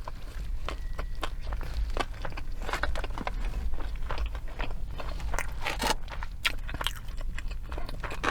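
Close-miked chewing and biting of a Burger King Whopper: irregular wet mouth clicks and soft crunches, over a steady low hum.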